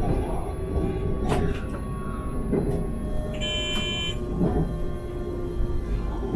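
Talent 3 electric multiple unit running along the track, heard from the driver's cab: a steady rolling rumble with a faint electric whine, and a sharp knock about every one and a half seconds. A short electronic beep sounds a little past the middle.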